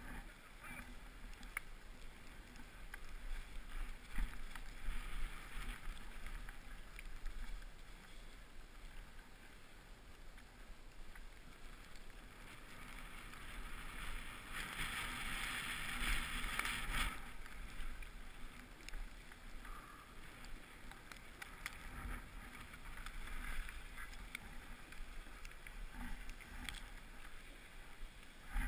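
Snow hissing and scraping under a rider sliding downhill, with wind rumbling on the action-camera microphone; a louder scraping rush comes about halfway through.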